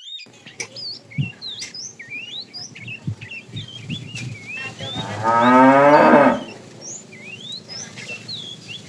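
A cow moos once, a single call of just over a second about five seconds in, over high chirps that come and go throughout.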